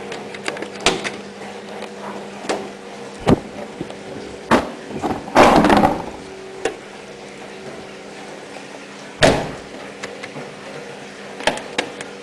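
Hoover ÖKOLOGIC WA1000 De Luxe washing machine running with a steady hum and irregular knocks and clunks. A longer rattling burst comes about five seconds in, and a sharp knock about nine seconds in.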